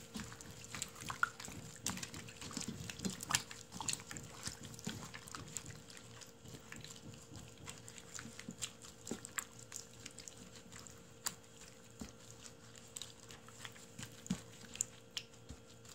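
Gloved hands squishing raw chicken pieces through a thick gochujang marinade in a pan: faint, irregular wet squelches and smacks, busier in the first few seconds and sparser after.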